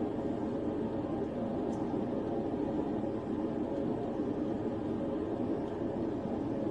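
Steady, unchanging cabin drone inside a police patrol car.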